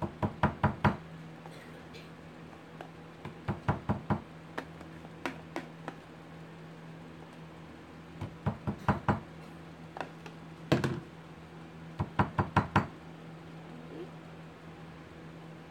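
A metal spoon rapped against a container's rim in quick runs of four or five sharp knocks, several times over, knocking thick hot-process soap batter off the spoon.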